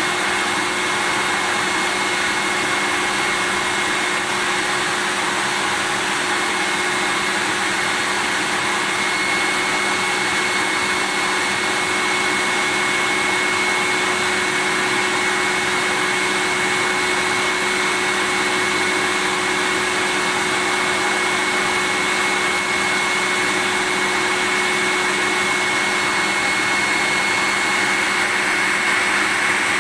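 Vacuum cleaner running steadily: an unchanging rush of air with a steady high whine over a lower hum.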